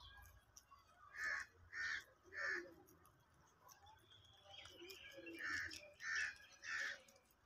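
A bird calling twice in series of three: three loud calls a little over half a second apart about a second in, then another three near the end.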